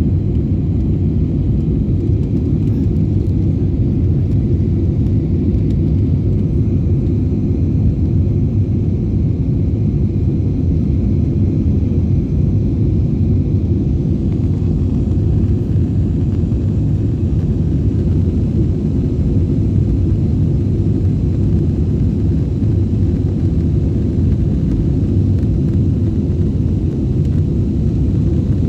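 Steady low rumble of a passenger plane's engines and airflow, heard from inside the cabin.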